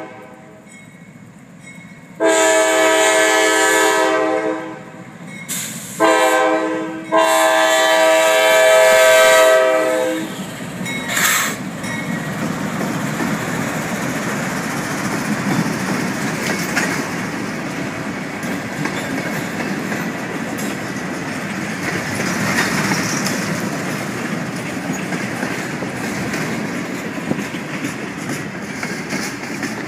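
Norfolk Southern freight locomotive's multi-note air horn sounding a grade-crossing signal: a long blast, a short one, then a final long blast that ends about ten seconds in. Then the slow local freight rolls past with a steady rumble and wheels clicking over the rail joints.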